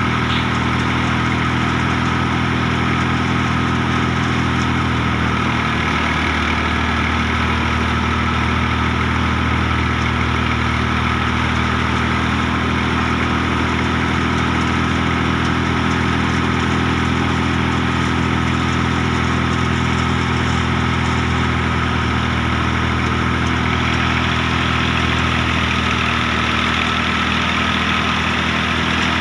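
Al-Ghazi tractor's diesel engine running steadily under load, powering a mustard thresher, with the thresher running alongside it.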